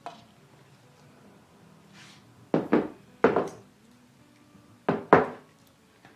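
Heavy glass jars set down on a wooden counter: a single knock at the start, then three pairs of knocks, the last pair the loudest.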